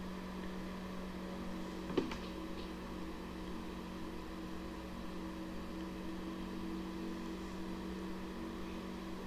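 Steady low hum of room tone, like an appliance or fan running, with one small click about two seconds in.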